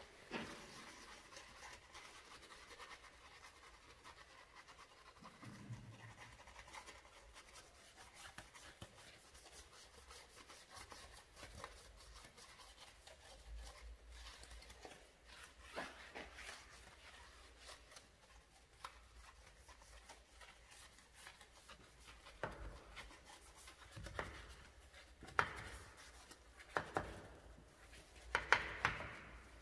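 Detailing brush scrubbing a wet, soapy alloy wheel: faint, irregular scratching of bristles on the rim and spokes, with sharper, louder strokes in the last few seconds.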